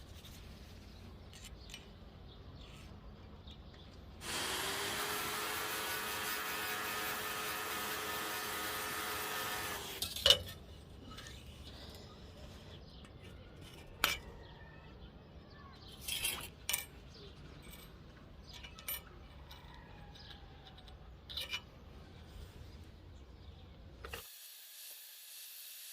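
A power tool runs with a steady whine for about six seconds, then stops. Several sharp metallic clinks and knocks follow, and a steady hiss begins near the end.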